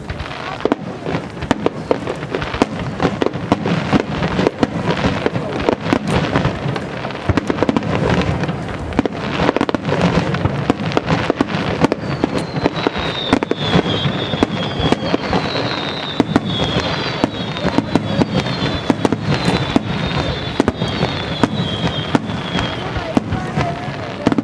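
Large star mine fireworks barrage firing in rapid succession: a continuous rolling stream of bangs and booms. From about halfway through, a series of short falling whistles sounds over the bangs, about one a second.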